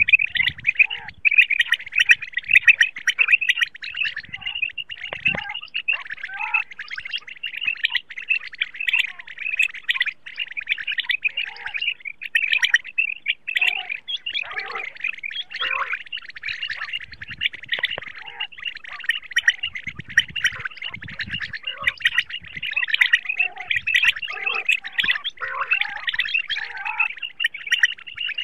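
Common quail chirping and calling in a dense, unbroken chatter of rapid high notes, as from several birds at once. This is the call used to lure quail for netting and hunting.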